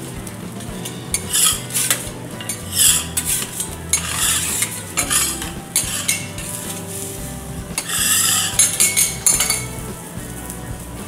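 Teppanyaki chef's metal spatulas scraping and clinking across a steel griddle in several short bursts, over a low sizzle of food frying on the hotplate.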